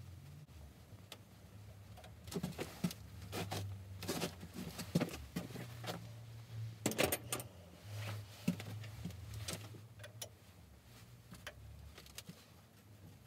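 Scattered metallic clicks and clinks of hand tools against a small lathe's carriage while the saddle is being taken off, over a low steady hum.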